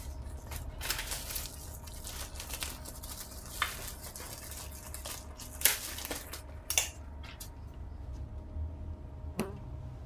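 Plastic bubble wrap crinkling and rustling as it is handled and cut with scissors, with a few sharp snips and clicks, the loudest about halfway through.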